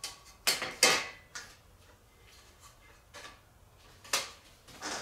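Thin 1/16-inch aluminum angle pieces clanking against the aluminum boat's transom as they are set in place: a few light metallic knocks, the loudest pair about a second in and more near the end.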